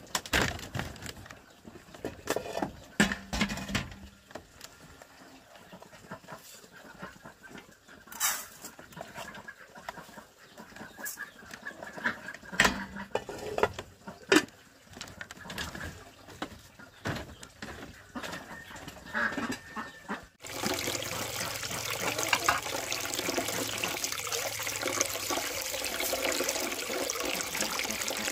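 Scattered knocks and clicks, with a few faint animal calls, then after a sudden cut about twenty seconds in, steady running water.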